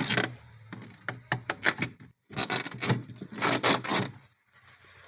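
Irregular scraping and clicking of a screwdriver on a screw and the refrigerator's plastic evaporator cover as the screw is loosened and the cover worked free; a dense run of scraping about two and a half seconds in, quieter near the end.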